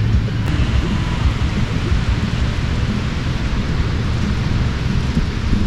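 Wind buffeting the camera microphone: a loud, irregular low rumble over a steady rushing hiss.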